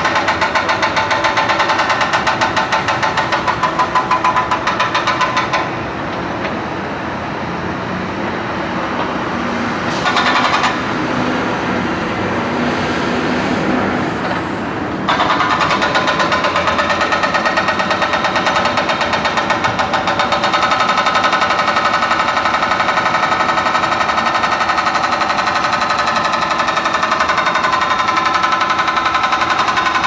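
Hydraulic breaker on a Caterpillar 420E backhoe loader pounding rapidly on street pavement. It stops about five seconds in, leaving the backhoe's diesel engine running with a brief burst of hammering near ten seconds, then starts pounding again about fifteen seconds in.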